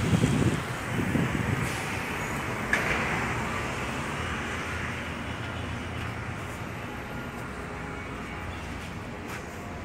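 Road traffic from an adjacent street: a vehicle's low rumble, loudest at first and slowly fading, with a brief hiss about three seconds in.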